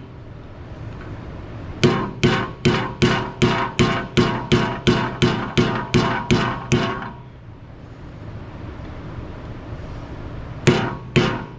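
Rapid hammer blows on metal, about three a second, driving off the rear wheel hub's dust cap with a flathead screwdriver, each strike leaving a short metallic ring. A run of about fourteen blows stops, and after a pause a few more begin near the end.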